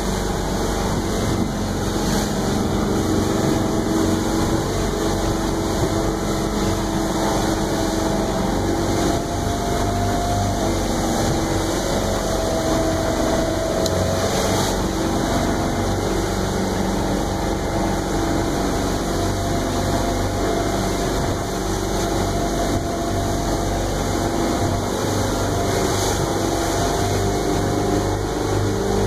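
Limestone 24 cabin cruiser's engine running steadily under way, heard from inside the cabin, its drone wavering slightly in pitch. Water and spray rush against the hull and windshield as the boat runs through choppy water, with a few faint splashes on top.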